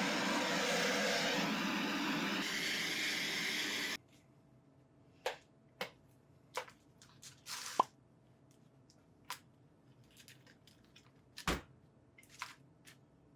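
A loud, steady rushing mechanical or air noise cuts off abruptly about four seconds in, followed by scattered light clicks and taps of parts being handled.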